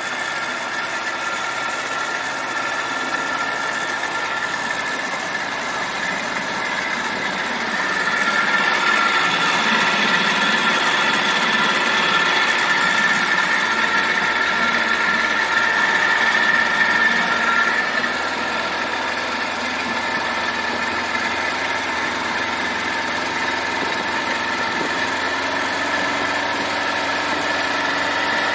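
A boat motor running steadily under way. It grows louder for about ten seconds from roughly a third of the way in, then settles back to its earlier level.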